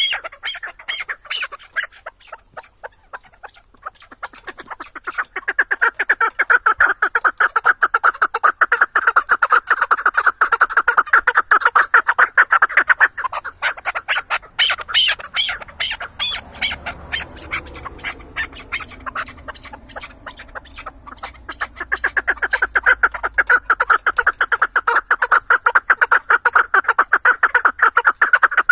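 Chukar partridge calling in long runs of rapid, repeated clucking notes. The calling is loudest from about five to fourteen seconds in and again from about twenty-two seconds on, with softer calling between.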